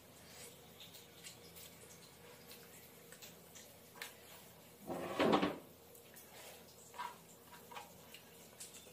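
Quiet eating sounds: faint clicks of fingers and rice against a plate, with one louder thump about five seconds in.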